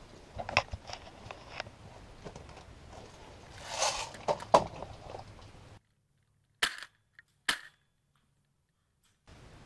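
Two sharp, short shots from a Polar Star HPA-powered airsoft DMR, under a second apart, against dead silence. Before them come faint knocks and clicks and a louder rustling burst about four seconds in.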